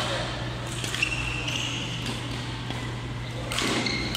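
Badminton rally: racket strings striking a shuttlecock several times, sharp hits about a second in and again near the end, with short high squeaks of shoes on the court floor, echoing in a large sports hall.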